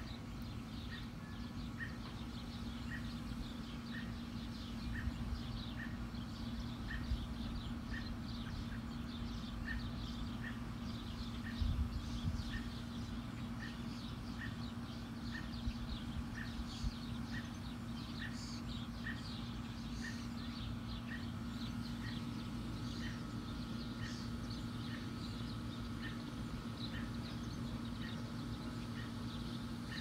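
Birds chirping and calling outdoors, among them one short high note repeated at a steady pace a bit faster than once a second, over a steady low hum.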